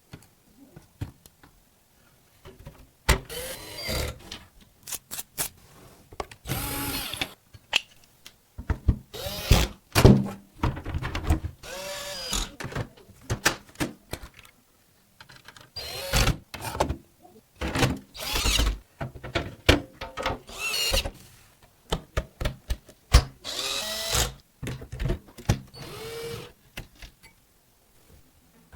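Small electric screwdriver running in repeated short bursts, its motor whirring up and down in pitch with each screw driven, with brief pauses between.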